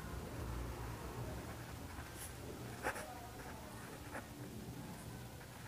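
Ballpoint pen writing on ruled notebook paper: faint scratching of pen strokes with a few sharper ticks, over a low steady hum.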